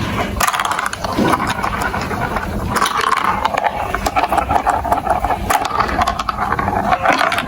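Marbles rolling and clattering down a plastic building-block marble run: a steady rolling rumble with many small clicks as the marbles hit track pieces and each other.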